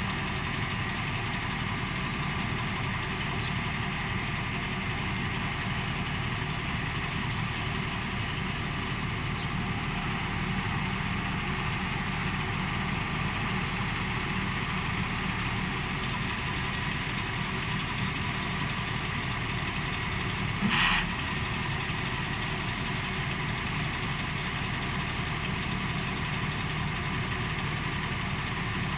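Small engine of a towable backhoe running at a steady idle. A short, louder sound cuts in once about two-thirds of the way through.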